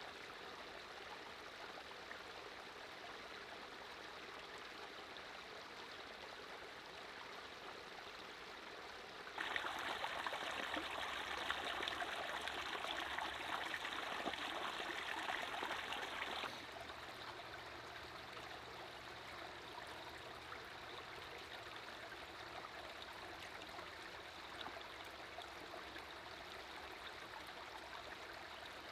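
Small, rocky woodland brook running and trickling over stones: a steady wash of water, louder for about seven seconds in the middle.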